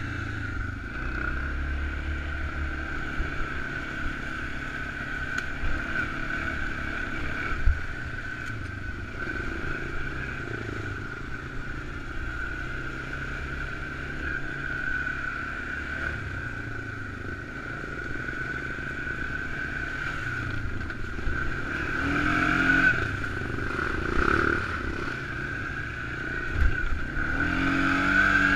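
ATV engine running as the quad rides a rough trail, with a steady high whine throughout; it revs up twice near the end.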